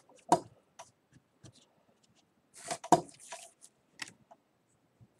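Trading cards being handled on a tabletop: a few soft taps and clicks as cards are set down and picked up. There is a short rustle and a sharper tap just under three seconds in.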